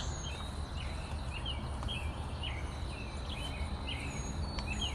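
Small birds chirping in short, repeated notes, with a few thin high whistles, over a steady low outdoor rumble.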